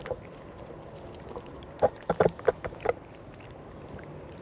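Two cats eating chunks of wet cat food from a foam tray right at the microphone, with a quick run of about six loud wet smacks and chews about two seconds in.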